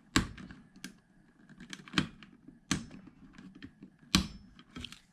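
Sharp plastic clicks and knocks, about six of them at uneven intervals, as a switch's squeeze tabs are pressed in to pop the switch out of a 12 V power supply's case.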